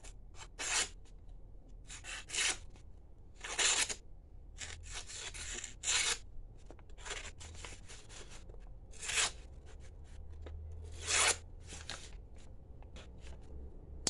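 Bear and Son Barlow slipjoint pocket knife blade slicing through a sheet of brown paper in a sharpness test: a dozen or so short, scratchy cuts, unevenly spaced.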